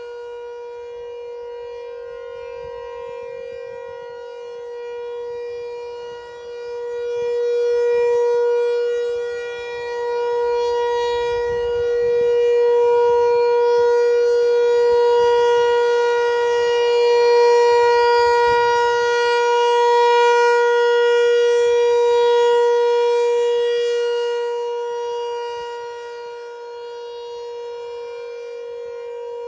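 ASC T-128 rotating outdoor warning siren sounding the steady Alert signal in a scheduled test: one held tone at constant pitch. It swells louder from about a quarter of the way in, stays loud through the middle, and fades again near the end as the rotating horn turns toward and away.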